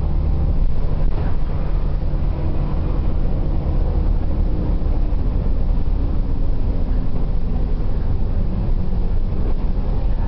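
Bus engine and road noise heard on board a moving bus: a steady low rumble.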